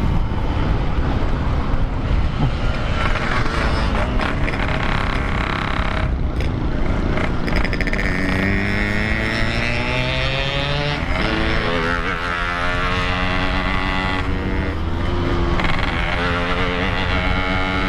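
Yamaha RX-King's 135 cc single-cylinder two-stroke engine running hard on the move, its pitch climbing and dropping repeatedly in the second half.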